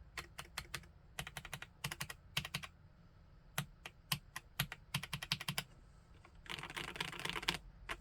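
Typing on a PK x BIOI Command 65 custom mechanical keyboard with SP-Star RedBlue switches: keystrokes in short quick runs, then about a second of very fast continuous typing near the end, and one last keystroke.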